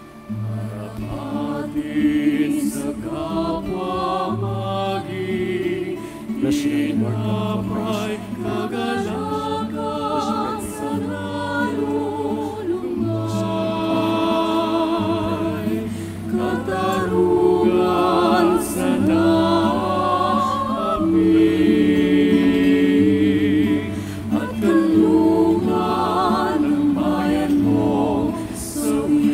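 Church choir singing an offertory hymn during the preparation of the gifts at Mass, with sustained low instrumental accompaniment under the voices.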